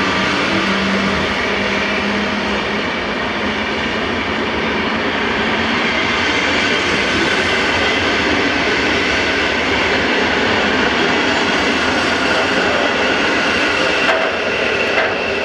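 A PKP Intercity passenger train hauled by an EU160 electric locomotive passing, its coaches rolling by with a steady, loud rumble of wheels on rail. A low hum sounds in the first two seconds or so and then fades out.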